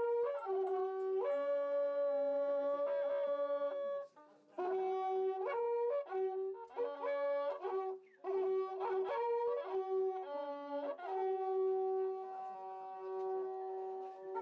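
Wakrapukus, Andean trumpets made of joined cattle-horn segments, blown together in long held notes at two or three pitches at once. The notes break off briefly about four seconds in and again about eight seconds in.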